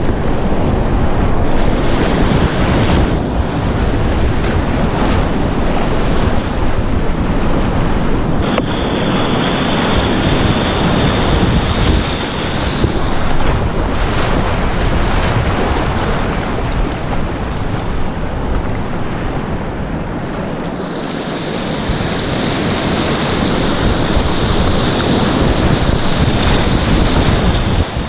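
Whitewater rapids rushing and splashing loudly and steadily right around a kayak as it paddles through them.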